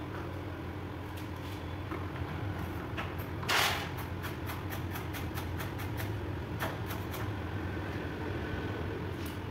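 Plastic side fairing of a KTM RC 390 being worked loose by hand. There is a short scrape about three and a half seconds in, then a run of small clicks, over a steady low hum.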